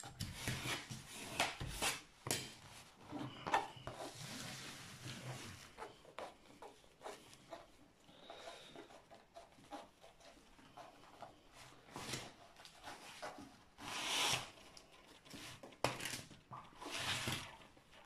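Hands rubbing and smoothing a diamond painting canvas under its protective release paper, giving irregular rustling and scraping, with a few louder rustles near the end.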